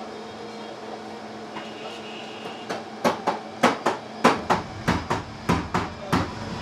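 A hammer tapping a steel punch set against a sewing-machine casting: about a dozen sharp metal strikes at roughly three a second. They start a little before halfway and stop near the end.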